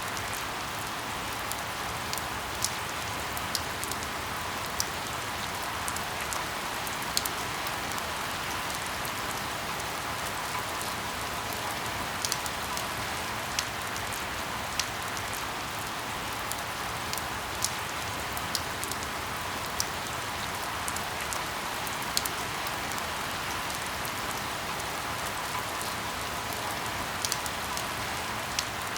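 Light rain falling steadily: an even hiss with irregular sharp ticks of individual drops striking a surface.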